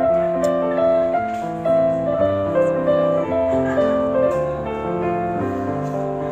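Background piano music playing a melody of held notes.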